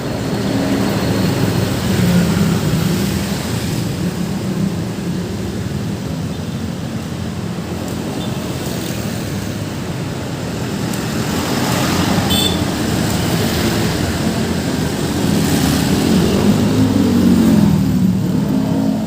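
Road traffic passing, engines running steadily. In the last few seconds a heavier engine rises in pitch as it accelerates past.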